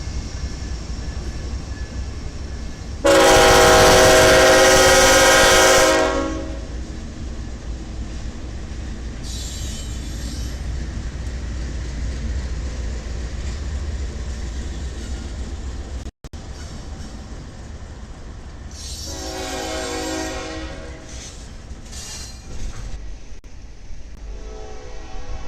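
Locomotive horn blowing over the low rumble of a passing train: one loud blast about three seconds long early on, then, after a break, a second, quieter blast and a short toot near the end.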